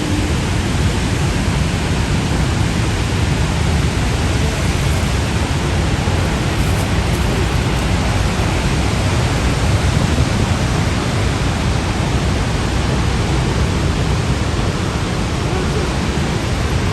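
Large waterfall pouring: a steady, loud rush of falling water with a deep low rumble underneath.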